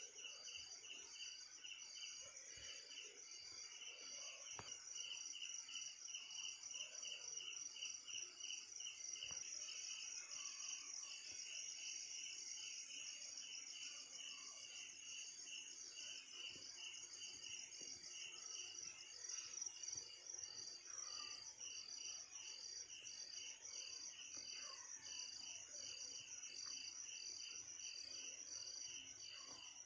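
Crickets chirping, faint: several insects at different pitches, each keeping an even, pulsing rhythm without a break.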